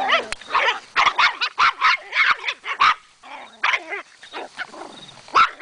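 Small dogs barking at each other in play: a quick run of short, sharp barks, a brief lull just past halfway, then more barks.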